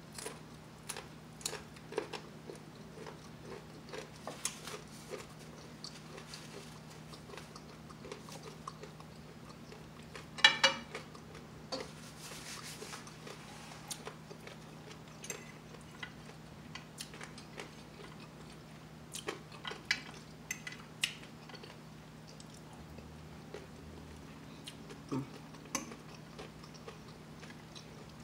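A person chewing and crunching crisp bacon close to the microphone, with scattered sharp clicks of a fork against a plate, and one loud click about ten seconds in. A faint steady hum runs underneath.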